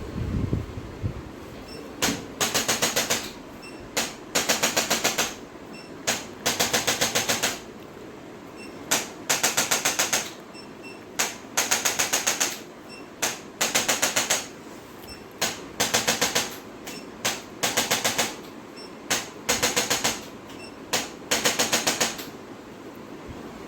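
Handheld electric chiropractic adjusting instrument firing in short bursts of rapid taps, about ten a second. Each burst lasts under a second and repeats every couple of seconds, often with a single click just before it.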